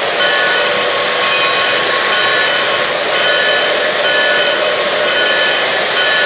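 Lionel O-gauge 0-8-0 model steam locomotive running on three-rail track, its steam sound effects making a steady loud hiss, with short high tones coming and going over it.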